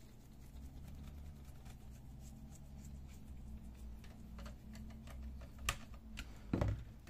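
Small ticks and clicks of a hand screwdriver driving a screw into the plastic frame of a laser-printer fuser unit. A steady low hum runs underneath, and there is a sharper click near the end followed by a knock.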